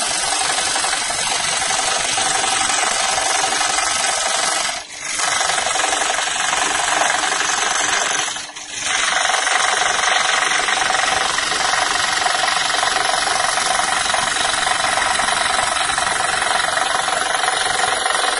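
Scroll saw running, its fine reciprocating blade cutting a curved line through 10 mm birch plywood with a steady, loud buzz. The sound dips away briefly twice, about five and eight and a half seconds in.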